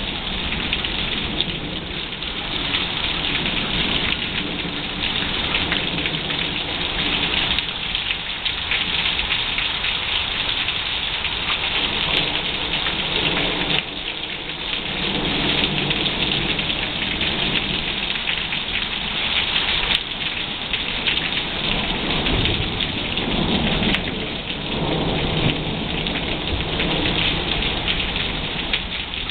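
Heavy rain falling steadily, with rolls of thunder rumbling under it, strongest about halfway through and again a few seconds before the end.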